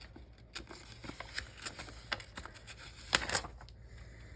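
Light scattered clicks and paper rustles of planner sticker sheets being handled, with a louder crackle about three seconds in.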